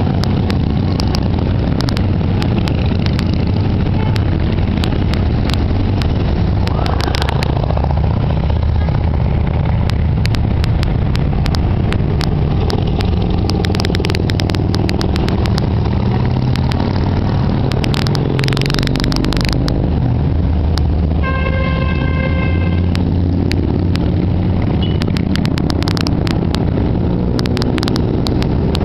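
A procession of cruiser and touring motorcycles running past one after another, their engines making a steady low drone that rises and falls as each bike goes by. A vehicle horn sounds once for about a second and a half, about twenty-one seconds in.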